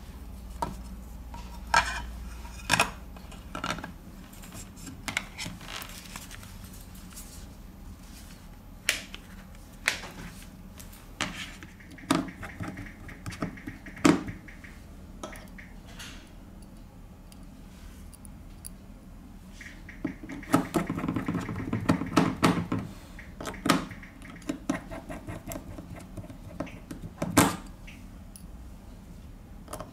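Scattered small clicks and taps of hand tools and smartphone parts being handled on a workbench, with a denser run of rattling clicks about two-thirds of the way through and one sharp click near the end.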